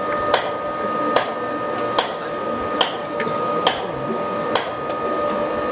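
Hammer blows struck at an even pace, six in all, a little under one a second, each sharp and short, over a steady faint hum.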